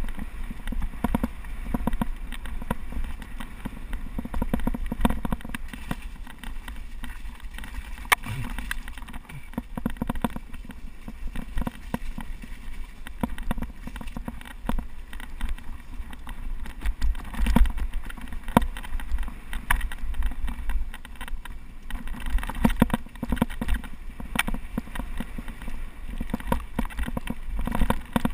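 Mountain bike rattling and clattering over rough, bumpy ground at speed, with a dense run of irregular knocks and clicks from the bike over a steady low rumble.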